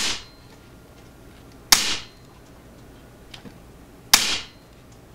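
ATI Nova Liberty .22 regulated PCP air rifle firing. One shot lands right at the start, then two more follow about two and a half seconds apart, each a sharp crack with a short ringing tail.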